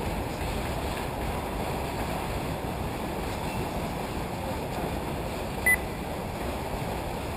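Steady low rumble of wind on the microphone, with one short, high electronic beep near the end.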